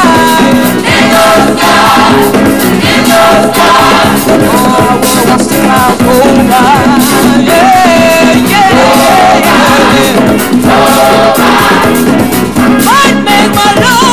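Gospel song with a choir and lead voices singing over a band, played at a steady, lively pace.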